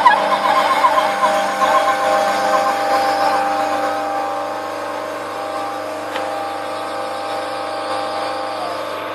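DIY CNC-converted lathe running a threading pass on PVC pipe: its stepper motors and spindle give a steady whine of several tones that warbles for the first few seconds, with one tone dropping in pitch near the end as an axis slows.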